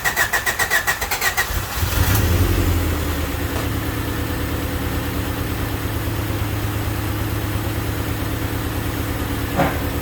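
1988 Honda Civic Wagon engine cranking on the starter with a fast even pulsing for about two seconds, then catching, revving briefly and settling into a steady, smooth idle. It starts after the intake air temperature sensor and idle air control valve wires were swapped. A single click near the end.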